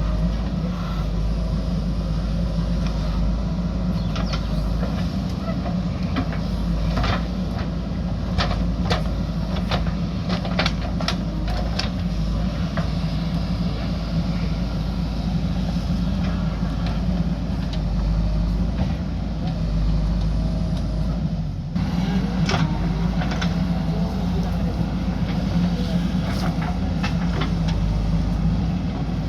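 JCB backhoe loader's diesel engine running steadily under work, with scattered sharp clanks and knocks, bunched in the first half and again about two-thirds of the way through.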